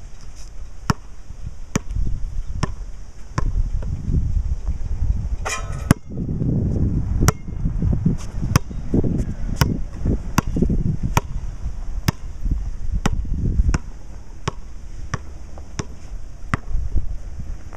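Basketball being dribbled on an outdoor concrete court, a steady run of sharp bounces about three every two seconds, with wind gusting on the microphone.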